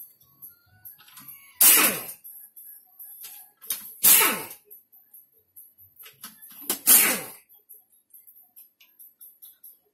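Compressed-air blow gun on a coiled air hose, fired in three short blasts of about half a second each, roughly two and a half seconds apart, blowing dust off a TV's power-supply board.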